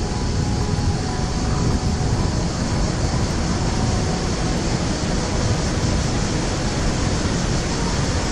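Wind buffeting the camera's microphone: a steady, flickering low rumble.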